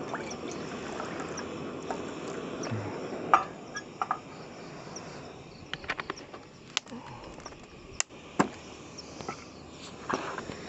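Water pouring from a plastic bottle into a small steel pot for about three seconds, then a run of light clicks and knocks as the bottle is screwed shut and camping gear is handled.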